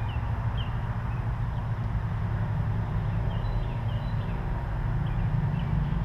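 Small birds giving short, high chirps scattered through, some in quick pairs or threes, over a steady low rumble that is the louder sound.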